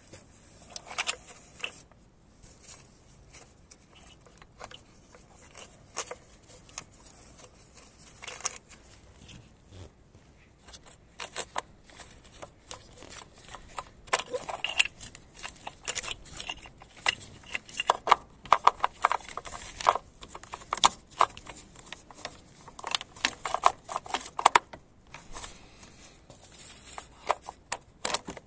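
Hand-handling noises as the camshaft position sensor's corrugated-sheathed cable and connector are worked out through the hole in the timing-belt backing plate: scattered small clicks, rustles and scrapes, sparse at first and busier in the second half.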